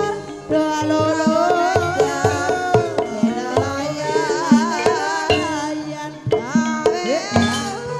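Javanese gamelan music for an ebeg (kuda lumping) horse dance: sharp kendang hand-drum strokes over held metallophone tones, with a high melody line that wavers with vibrato above them.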